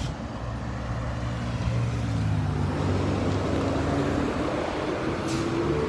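Road traffic: a motor vehicle engine's steady low hum, with its pitch rising gradually through the second half as the vehicle speeds up.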